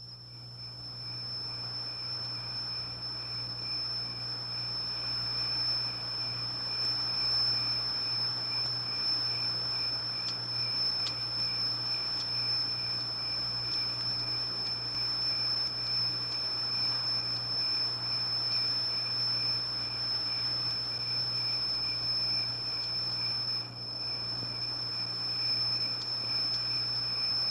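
A steady high-pitched whine over a low hum and an even hiss, with no distinct events; the hiss swells over the first few seconds.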